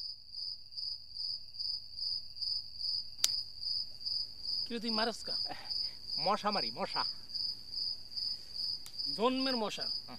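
Crickets chirping in an even, steady pulse of about four chirps a second, with one sharp click about three seconds in.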